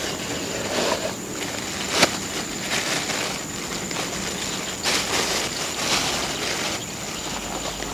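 Rustling and crinkling of a rice-packet food wrapper being handled while eating, irregular crackles with one sharper click about two seconds in.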